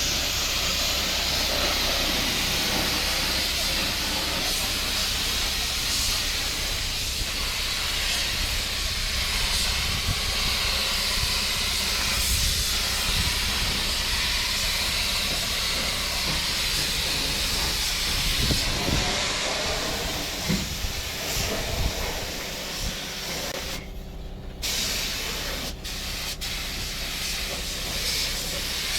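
Steady hiss of compressed air from a paint spray gun, cutting out briefly a few times near the end.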